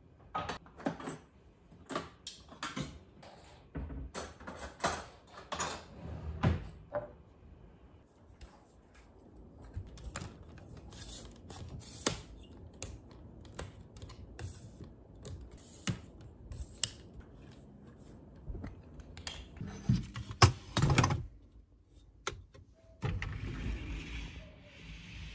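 Intermittent clicks, knocks and clatter of household objects being handled and set down, with a cluster of sharper knocks about twenty seconds in and a short stretch of hiss near the end.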